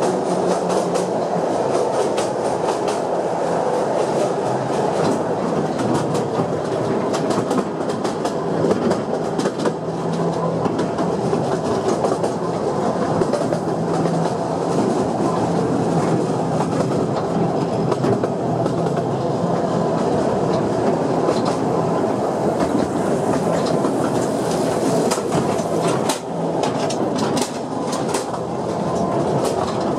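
Narrow-gauge train heard from an open car while running along the track: a steady rumble of wheels on rail with scattered clicks and clatter and a faint low hum that comes and goes.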